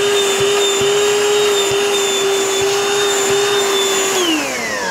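Black+Decker CHV1410L 16-volt lithium cordless DustBuster hand vacuum running with a steady high motor whine, then switched off about four seconds in, its pitch falling as the motor spins down.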